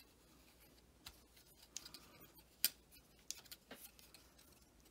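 Faint, scattered metallic clicks and ticks of a 3 mm steel hex key working in M4 socket cap screws as they are turned into a spindle's LED-ring holder. The loudest click comes a little past halfway.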